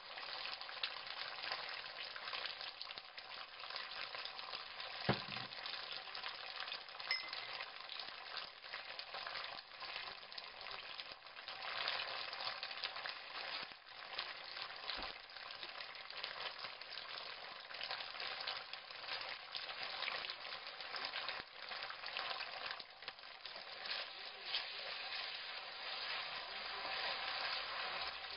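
Garlic and red sauce sizzling in a nonstick frying pan while being stirred with a wooden spatula, a steady crackle throughout. One knock about five seconds in.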